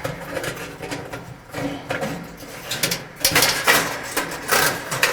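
Old dryer heating coil wire being pulled through its ceramic holders and metal heater housing: irregular metallic scraping and rattling, busier and louder in the second half.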